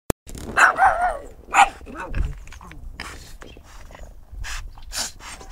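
A pug barking and yapping several times in quick succession, followed by a run of short, noisy sniffs and snuffles.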